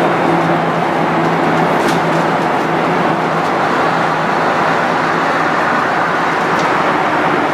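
Scania L113CRB bus's 11-litre six-cylinder diesel engine running steadily under way, a low engine drone over road noise. The lowest note of the drone fades back about three seconds in.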